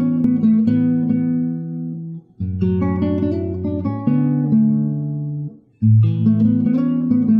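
Background music: an acoustic guitar playing held chords, with short breaks between phrases about two seconds in and again about five and a half seconds in.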